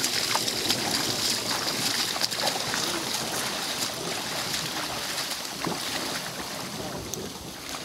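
Rubber boots wading through shallow lake water: a steady run of sloshing, splashing footsteps, easing off a little near the end.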